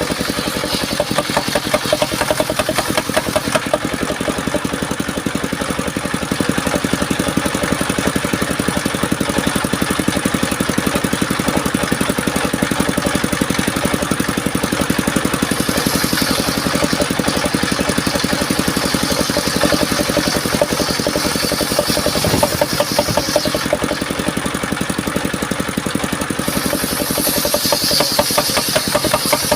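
The engine of a home-built mobile circular sawmill running steadily with a rapid pulsing beat. A higher-pitched sound joins it about halfway through and again near the end.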